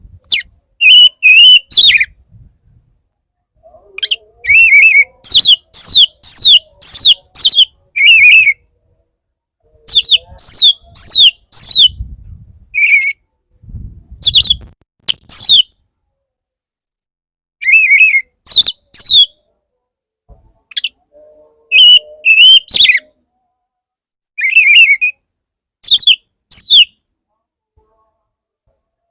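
Male oriental magpie-robin singing a lure song: loud, clear whistled phrases of quick down-slurred notes, in bursts of a few seconds broken by silent gaps.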